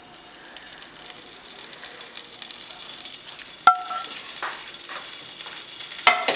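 Hot coconut oil, left over from frying fish, sizzling in a pan on the stove; the sizzle grows steadily louder. A sharp metallic clink rings out about halfway through, and a few more clinks come near the end.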